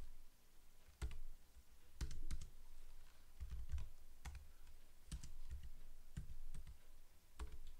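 Typing on a computer keyboard: irregular keystrokes in short runs with brief pauses, as numbers are entered into form fields.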